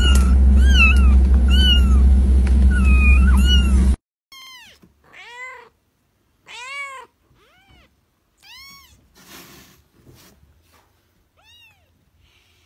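Kittens mewing: for the first four seconds a chorus of many small kittens' high mews overlapping over a steady low hum. After an abrupt cut, separate quieter mews follow, each rising then falling in pitch, about six spread over the rest.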